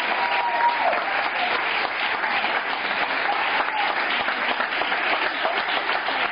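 Audience applauding steadily after a tango performance, many hands clapping at once. A short high held tone sounds over it in the first second.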